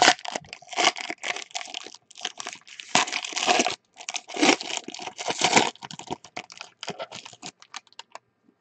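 A 2013 Panini Black trading-card pack's foil wrapper being torn open with a run of crackling rips and crinkles, loudest in the middle. The crackles thin out to light crinkles near the end as the cards are slid out.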